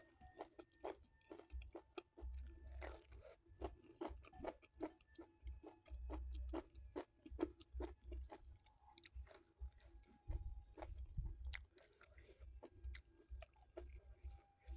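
Close-miked chewing of a mouthful of nasi tiwul (steamed cassava rice) with its side dishes: a steady, irregular run of small wet clicks and soft crunches, with low thuds now and then.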